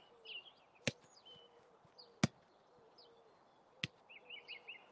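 Three sharp kicks of a football, the middle one loudest, with small birds chirping faintly throughout.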